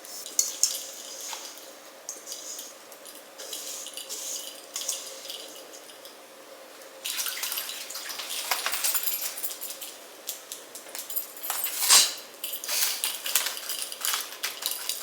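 A spoon scraping and clinking against a bowl and moulds while scooping a crunchy fried-kataifi and pistachio filling into chocolate bar moulds. It is irregular scraping with a few sharp clinks, busier from about halfway through.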